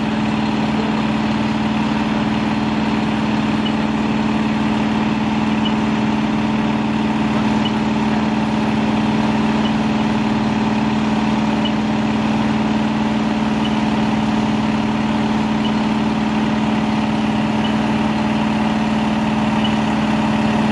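Fire engine's diesel engine running steadily, a constant drone that holds one pitch throughout.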